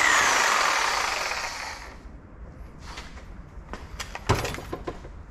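Reciprocating saw winding down after the trigger is let go, its whine dropping in pitch and fading over about two seconds. Then scattered clicks and clanks as the saw and metal are handled, with a single louder knock about four seconds in.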